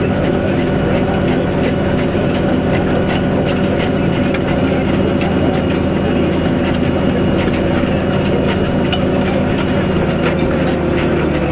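New Holland TM130 tractor engine running steadily at working revs while pulling a field roller, with light clicking and rattling over it; the engine note dips slightly near the end.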